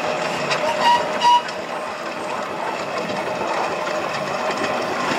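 Ruston & Hornsby steam roller running, with a steady mechanical clatter of repeated clicks and knocks from its engine and gearing. Two short high-pitched tones sound about a second in.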